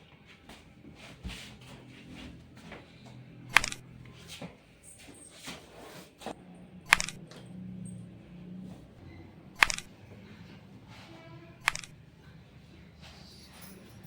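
Four sharp clicks two to three seconds apart during a chiropractic adjustment of the lower back, with fainter ticks and rustling between them.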